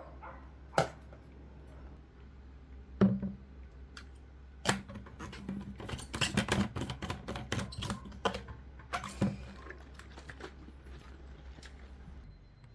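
Knocks and clicks from kitchen items being handled, a few single knocks, then a busy run of clatter in the middle, over a steady low hum that stops near the end.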